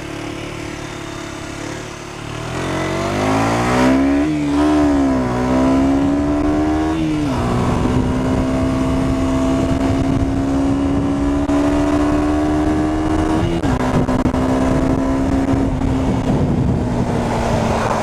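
A KTM 125 Duke's single-cylinder 124.7 cc engine under way. The revs climb from a low note about two seconds in, the pitch falls sharply at an upshift about seven seconds in and again near fourteen seconds, and in between the engine holds a steady note at cruising speed.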